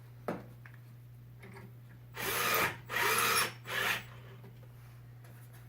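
Power drill/driver running in three short bursts, driving a screw in while the new burner is fastened back into the stove.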